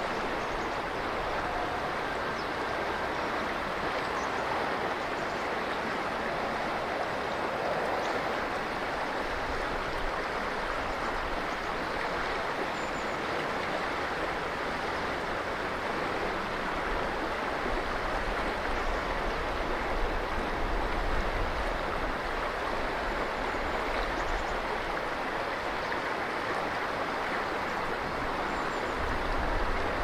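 Flowing river water rushing steadily, from a tributary meeting the Ishikari River.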